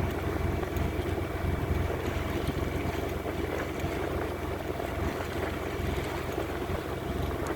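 Wind buffeting the microphone over a steady rush of water along the hull of a sailing yacht under way.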